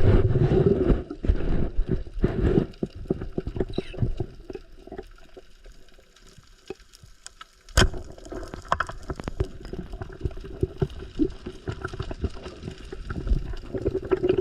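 Water sloshing and splashing close to the microphone, with scattered knocks and one sharp knock about eight seconds in.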